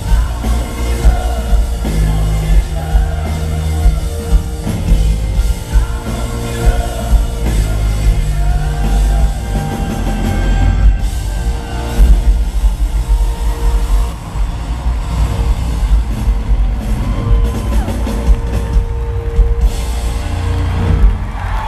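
Live pop-rock band with drums, electric guitar, bass and a male lead vocal, recorded from the audience. The recording is loud and heavy in the bass.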